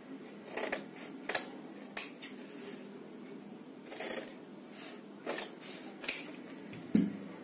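Large tailor's shears cutting through double-folded stiff buckram interfacing, in a series of short snips, about seven of them at uneven intervals.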